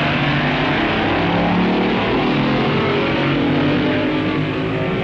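Dragster engine at full throttle during a quarter-mile run, a loud steady drone with faint background music underneath.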